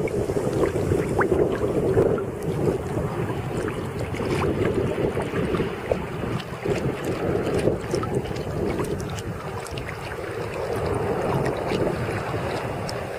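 Sea water sloshing and splashing close to the microphone, with many small drips and splashes and wind buffeting the microphone.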